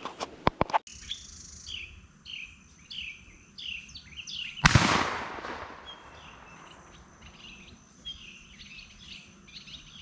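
A single rifle shot about five seconds in, a sharp crack with an echoing tail, which finishes off a wounded squirrel. A small bird chirps repeatedly, about twice a second, before and after the shot. A few handling clicks sound in the first second.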